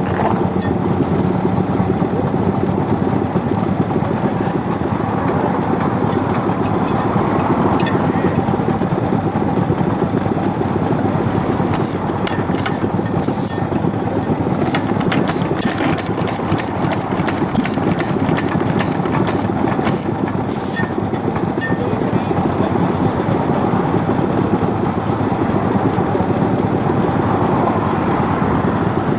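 An old single-cylinder stationary farm engine (hatsudoki) running steadily with fast, even firing beats. It is smoking heavily, a sign of the poor maintenance that its operator names.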